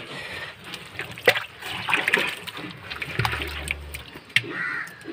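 A hand stirring and squeezing watery cattle feed mash in a bucket, with uneven sloshing, splashing and squelching.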